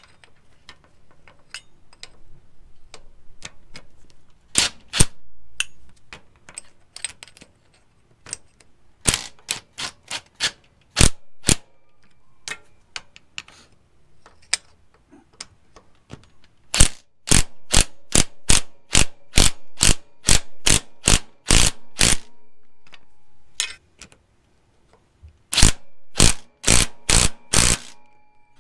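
Socket ratchet clicking in runs of sharp clicks, several a second, with short pauses between, as the driveshaft's flange bolts are run down onto the rear differential pinion flange. The runs come thicker in the second half.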